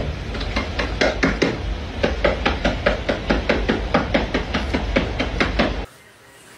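Rapid, even knocking, about five strikes a second, over a low rumble. It cuts off suddenly near the end.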